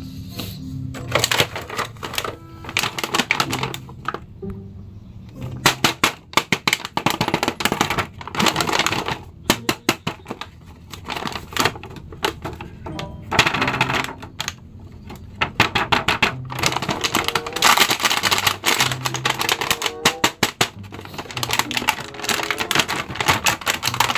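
Thin plastic packaging bag crinkling and crackling in quick runs as a toy figure is handled and pulled out of it, over background music.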